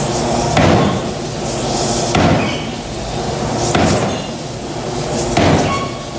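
Large drop forging hammer striking a glowing hot workpiece in its die: four heavy blows about one and a half seconds apart, each ringing out before the next.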